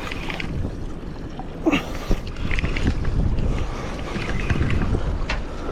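Wind buffeting the microphone on a small fishing boat at sea, a steady low rumble with a few short knocks.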